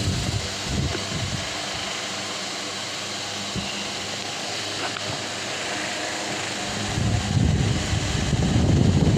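Delta Gold 50 cm wall fan running with a steady rush of air. About seven seconds in, a low rumble of wind on the microphone grows louder.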